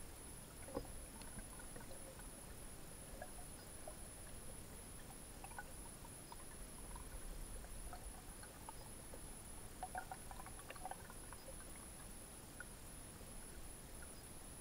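Faint underwater ambience heard through a submerged camera: a low hiss with scattered small clicks and ticks, a cluster of them about ten seconds in, over a steady thin high whine.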